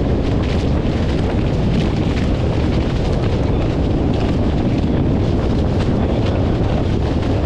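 Strong wind buffeting the microphone with a steady low rumble, over water rushing and splashing with many short hisses, aboard a Hobie Fox sailing catamaran under way.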